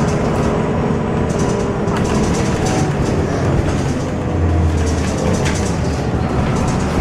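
Irisbus Citelis city bus heard from inside while moving: a steady engine and drivetrain rumble with road noise and light rattles of the interior fittings.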